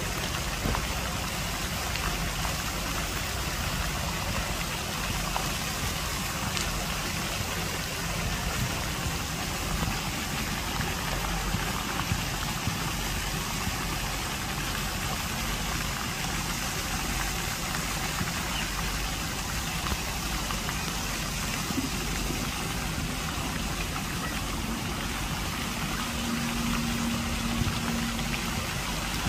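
Lake fountain jets spraying and splashing down onto the water: a steady rushing, splashing noise with a low rumble underneath.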